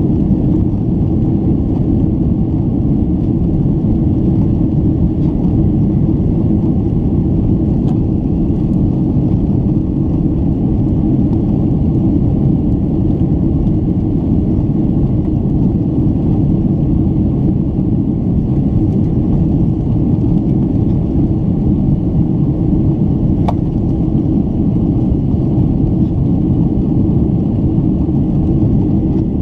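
Steady cabin rumble of a Boeing 767 in its climb: engine and airflow noise heard inside the passenger cabin, even and deep with no change in level.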